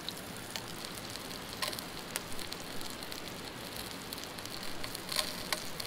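Whole brook trout frying in butter in a small pan on a camp stove: a steady sizzle with a few scattered pops and crackles.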